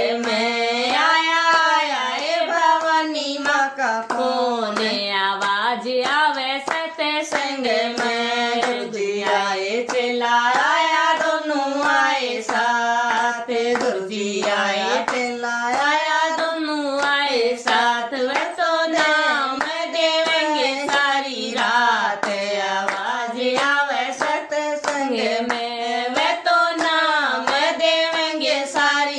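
A woman singing a Hindi devotional bhajan, a held, gliding melody, to steady rhythmic hand clapping with no other accompaniment.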